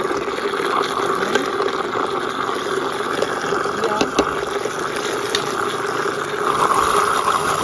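Steady background noise with a few light clicks of a metal spoon against a plastic blender jar of garlic paste.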